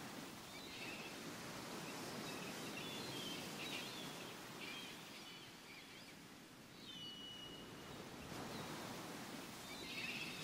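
Faint outdoor ambience: an even background hiss with small birds chirping now and then, and one short thin whistle about seven seconds in.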